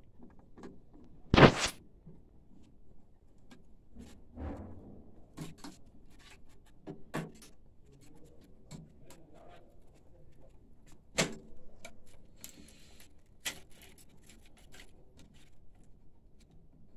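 Scattered clicks and knocks of cable connectors being unplugged and handled in a printer's electronics box, with a sharp knock about one and a half seconds in and a few smaller ones later.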